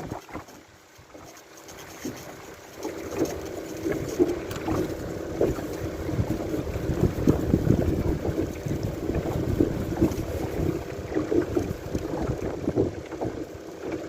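A steady motor hum under gusty wind rumbling on the microphone. Both drop away for a moment near the start, then come back.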